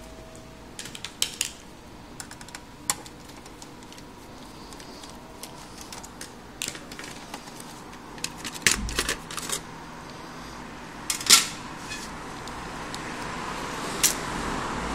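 Scattered small clicks, taps and knocks of a PlayStation 3 Slim's screws, casing and cover being handled as it is taken apart, the loudest knocks about nine and eleven seconds in. A faint hiss grows louder near the end.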